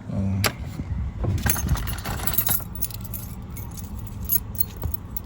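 Light metallic clinking and jingling, many small clicks, over a steady low hum.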